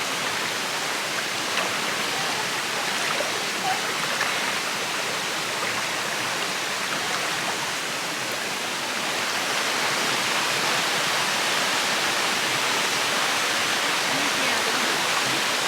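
Steady rush of water falling and flowing over rocks at a small jungle waterfall and stream, a dense even hiss that swells a little about two-thirds of the way through.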